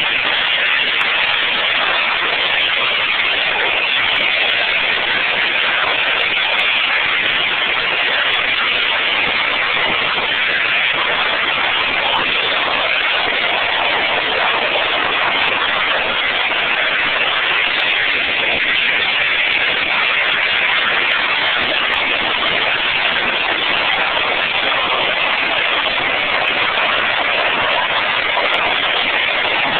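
DC electric arc furnace running at 800 volts DC and 50,000 to 120,000 amps: the loud, unbroken noise of the arc, strongest in the upper-middle range.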